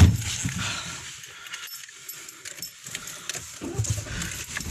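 A car door shutting with a single heavy thud, followed by the rustle, clicks and light knocks of a phone being handled inside the car.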